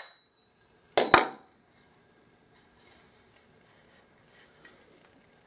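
Claw hammer giving two quick taps, about a second in, to a wooden wedge in a wooden dado plane, seating it to lock the nicker iron. Faint handling of the plane follows.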